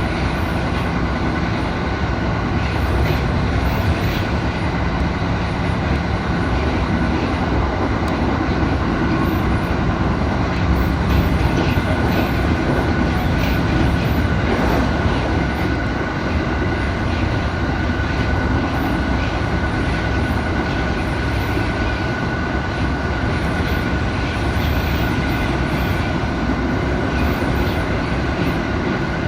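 Passenger train running slowly, heard from inside the car: a steady rumble of wheels on rail with a constant high whine held throughout.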